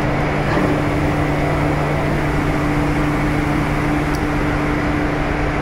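Bench grinder with a wire brush switched on, its motor hum starting about half a second in and running steadily. It sounds over the constant machinery noise of a ship's engine room.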